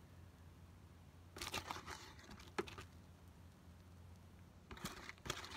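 Hand trowel scooping dry potting soil and scattering it over a seed tray: two short bouts of gritty scraping and crumbling, the first with a sharp click about two and a half seconds in.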